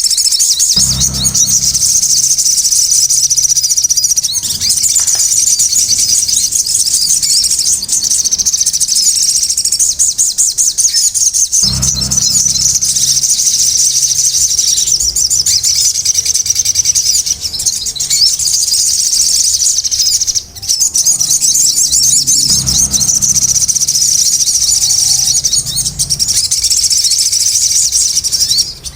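Sogon (crimson sunbird) singing a rapid, unbroken, high-pitched chattering song, with a low rumble a few times.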